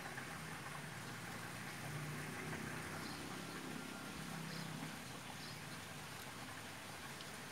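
Quiet outdoor ambience beside a fishing pond: a steady faint hiss with a low hum that swells and fades a few times, and a few faint high ticks.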